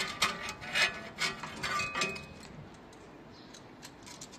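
Metal brake parts being handled: a run of clinks, knocks and scrapes with short metallic ringing, lasting about the first two seconds.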